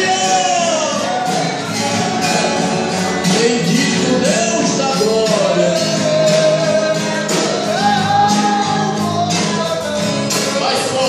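Live gospel worship music: a sung melody with vibrato over a band with a steady beat.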